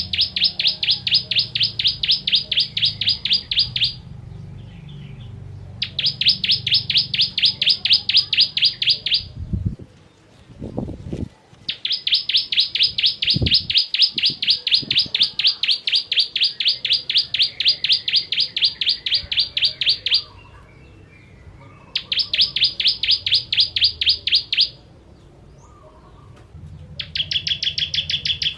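Ciblek kristal (bar-winged prinia) singing in bouts of a fast, even string of high, sharp notes, about ten a second. Each bout lasts a few seconds, with short pauses between. The last bout, near the end, is lower in pitch. A few low thuds fall in the longer pause near the middle.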